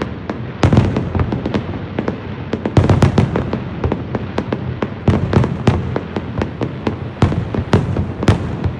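Fireworks display: dense volleys of sharp bangs and crackles, a fresh volley starting every two seconds or so.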